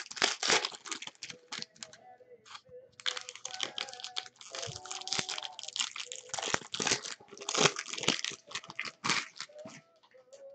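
Foil wrappers of baseball card packs crinkling and tearing as hands rip them open, a run of dense crackles that thins out near the end.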